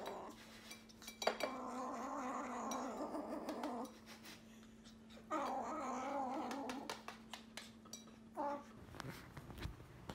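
A kitten making two long, wavering yowls of a couple of seconds each, then a short one, over small clicks and crunches of kibble being eaten from a bowl.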